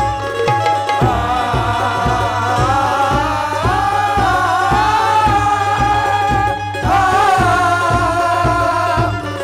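Live qawwali music. A singer holds long, wavering sung lines over harmonium and a steady hand-drum beat. The voice comes in about a second in and pauses briefly near the end.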